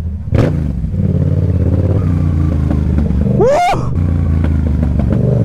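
Motorcycle engine running steadily under way, its exhaust open with the dB killer baffle popped out. A short rising-and-falling whoop cuts across it about three and a half seconds in.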